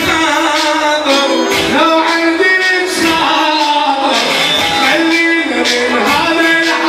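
Live Iraqi band music: a melody of held and shifting tones over a steady drum beat.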